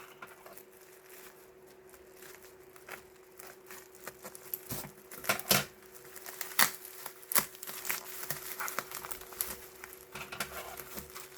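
Packaging being handled and unwrapped by hand: scattered crinkles and light clicks and taps, busier from about halfway through.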